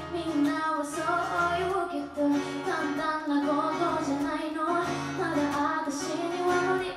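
Young woman singing a pop song live, accompanying herself on acoustic guitar, with the sung melody over steady guitar chords.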